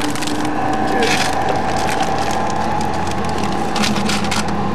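Steady engine and road drone inside a moving car, with brief crackling rattles about a second in and again near the end.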